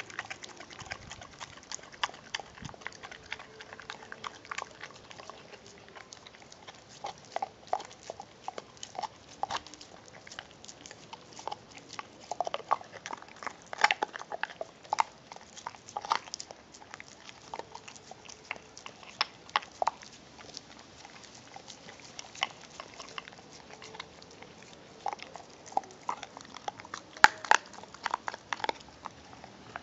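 American Pit Bull Terrier gnawing a raw beef rib: irregular crunches and clicks of teeth on meat and bone, with louder bursts of crunching about halfway through and again near the end.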